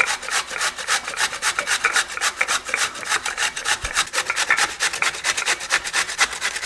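Raw turnip rubbed fast on a hand grater: an even run of quick scraping strokes, several a second, that stops abruptly at the end.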